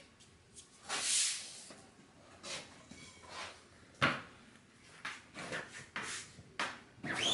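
Hand silkscreen printing: a sheet of paper slid into place on the print bed, the hinged wooden screen frame knocking down onto the table about four seconds in, then a wooden squeegee dragged through ink across the screen mesh in several short scraping strokes. A rising-and-falling squeak starts right at the end.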